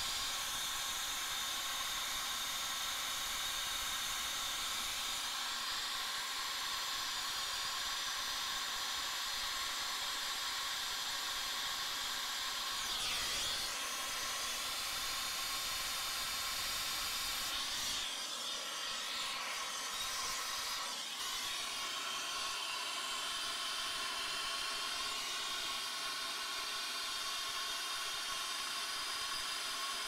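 Air-acetylene torch flame hissing steadily while brazing a copper joint with silver braze rod, wavering briefly a few times partway through.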